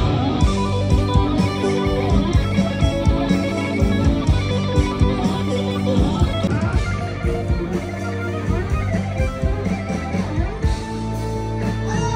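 Rock band playing live: an instrumental passage led by electric guitar, with bass and a steady beat, and no vocals.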